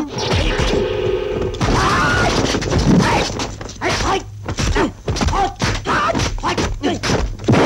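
Dubbed kung fu film fight sound effects: a rapid, uneven run of sharp smacks from punches and blocks, mixed with the fighters' shouts and grunts, including a long held yell at the start.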